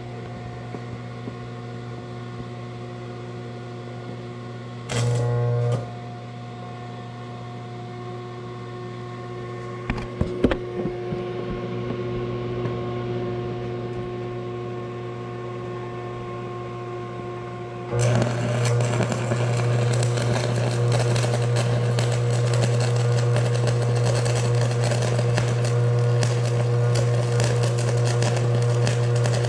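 Vulcan Commander 225 transformer arc welder humming steadily, with brief louder bursts about five and ten seconds in. From about eighteen seconds an E7018 stick electrode burns in a steady arc on DC positive, crackling continuously over a louder transformer hum.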